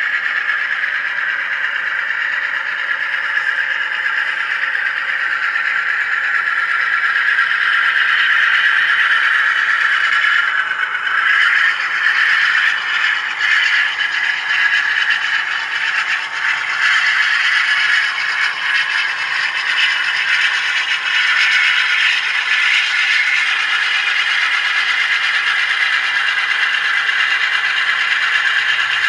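Sound of a GE U25C diesel locomotive's engine running steadily, played by an HO-scale model's TCS WOWsound decoder through its small onboard speaker as the model hauls its train.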